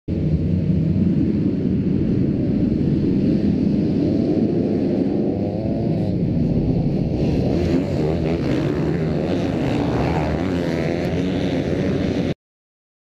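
A pack of motocross bikes' engines racing, revs rising and falling, growing busier from about halfway through as the bikes come closer; the sound cuts off suddenly near the end.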